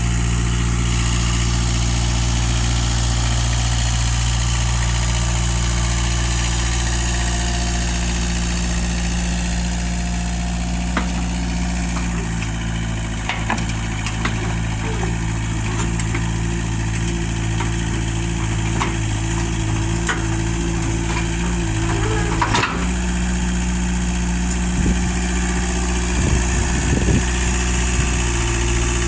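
An engine idling steadily. Its note changes about twelve seconds in and returns near the end, with a few knocks and clicks in between.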